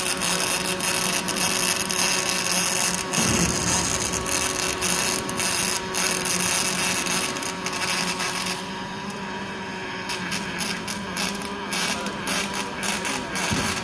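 Robotic MIG welding arc crackling and sizzling continuously, over a steady machine hum. The crackle drops away for a second or two past the middle, then starts again.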